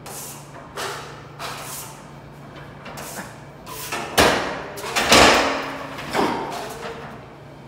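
Steel taping knife scraping drywall joint compound against a mud pan, in a string of short strokes roughly every half second to second. The loudest strokes come about four and five seconds in, with a thud among them.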